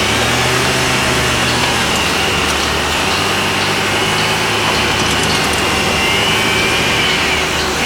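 Construction-site machinery running: a steady low engine drone that shifts pitch slightly, with a high steady whine over it and a few faint light clicks.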